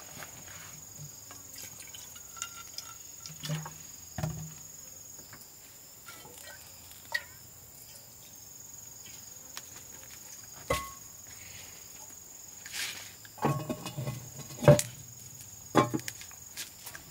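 Steady high-pitched drone of insects, with irregular knocks and clatter on top, most of them in a cluster near the end.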